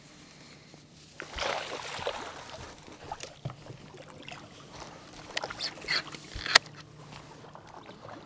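Rod-and-reel handling on a bass boat: a rushing swish of the cast about a second in, then scattered light clicks and taps, the sharpest one about six and a half seconds in, over a faint steady hum of the boat's electric trolling motor.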